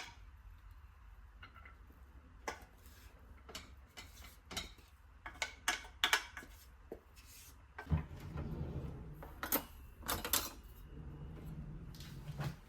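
Kitchen dishes and utensils clinking and knocking in a string of separate sharp taps. A steady low hum joins about eight seconds in and runs until just before the end.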